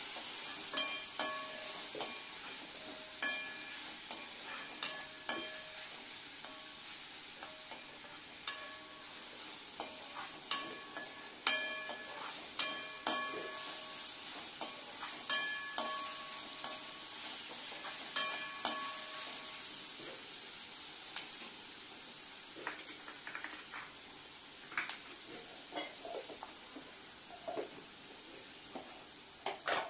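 Sliced onions, chillies and curry leaves sizzling in hot oil in a kadai while a steel spoon stirs them, knocking and scraping against the pan with short metallic rings. The spoon knocks thin out after about twenty seconds and the sizzle slowly grows fainter.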